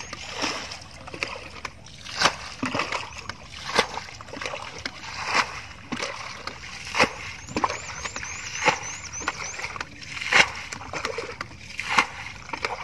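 Muddy pond water splashing and sloshing in repeated splashes, about one every second or two, as a person wades knee-deep and dips a metal pot into the water.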